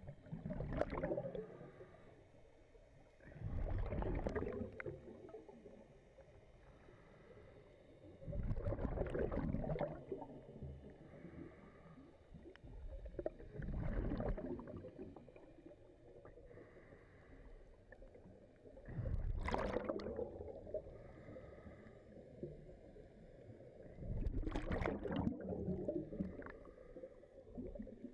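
Scuba diver breathing through a regulator underwater: about six bubbling bursts of exhaled air, one roughly every five seconds, with quieter stretches between. The sound is muffled through the camera's waterproof housing.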